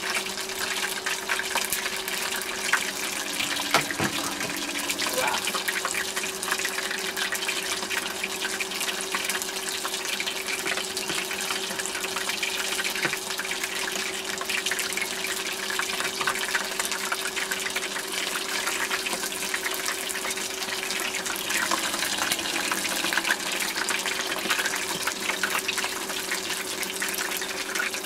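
Chicken pieces deep-frying in a small pot of hot oil: a steady, dense sizzle full of fine crackles, with a steady low hum underneath.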